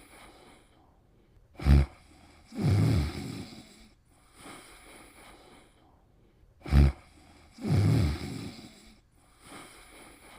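Snoring in sleep: two breaths about five seconds apart, each a short sharp snort followed about a second later by a snore lasting about a second, with a fainter breath between.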